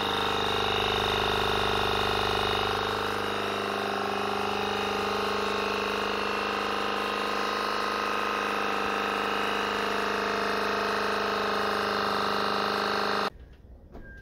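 12-volt electric paddleboard pump running steadily while inflating an inflatable paddleboard, a motor hum with several steady tones whose pitch shifts slightly in the first few seconds. It cuts off sharply near the end.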